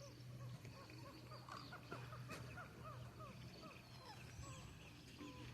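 Coots calling faintly: a run of short, quick, down-slurred notes, with a low steady hum underneath.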